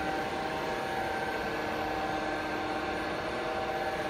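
A steady mechanical drone: a constant hum with a few held tones over an even hiss, unchanging throughout.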